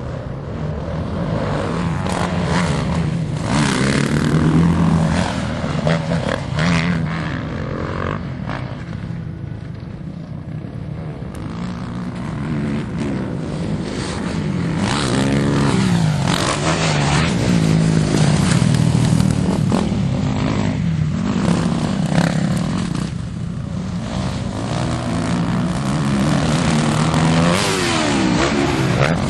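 Motocross dirt bike engines revving and passing. The pitch glides up and down again and again with throttle and gear changes, and the sound swells loudest several times as bikes come close.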